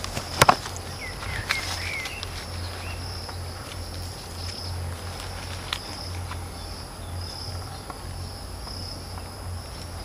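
Insects chirring in repeated high pulses, about once or twice a second. A few short bird calls come in the first couple of seconds, and a couple of sharp clicks from the camera being handled come about half a second in.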